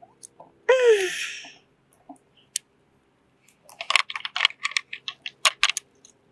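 Small plastic toy pieces clicking and tapping against a plastic Polly Pocket compact as fingers press them into place, a quick irregular run of clicks in the second half. About a second in, a child gives a short vocal sound that falls in pitch.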